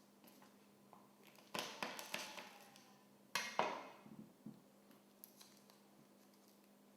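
Garlic cloves being crushed in the kitchen: two short clusters of sharp knocks, the second a little over a second after the first ends, each with a brief ringing tail.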